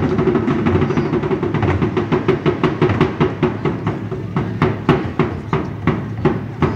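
Street percussion playing a fast, even rhythm of sharp strikes over a dense drum-like rumble.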